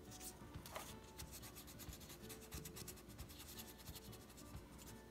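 Faint scratchy rubbing of a burnishing tool pressed and drawn over mending tissue on a cardboard box edge, with a slightly louder scrape about a second in.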